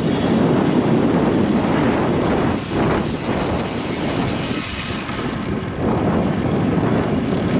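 Strong gusty wind buffeting the microphone of a camera on a moving road bike: a loud, dense rumble with no clear tone that eases and swells with the gusts.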